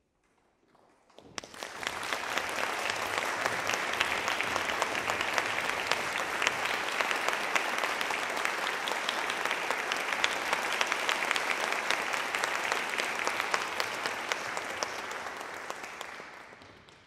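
Audience applauding in a concert hall, starting about a second in and fading away near the end.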